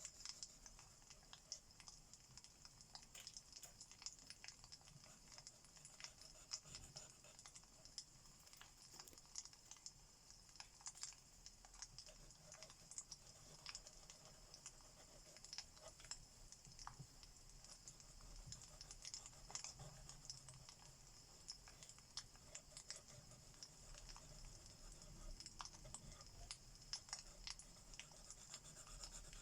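Faint crackling of a wood fire: scattered small pops and ticks at an uneven pace over a steady soft hiss.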